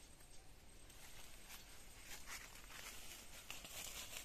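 Faint, scattered rustling and soft footfalls in leafy undergrowth, a few light crunches of leaves and twigs underfoot.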